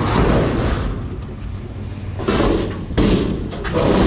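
Sheet-metal washing machine cabinet being handled and shifted, metal clattering, with two sharp metal knocks about two and three seconds in.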